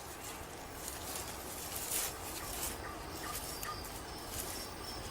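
Forest ambience: a steady hiss with faint, short bird chirps and a few soft rustles.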